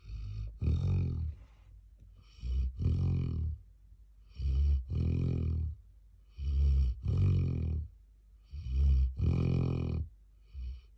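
A young black Labrador retriever snoring in its sleep: a steady rhythm of rasping snores, one roughly every two seconds, each breath broken into two parts.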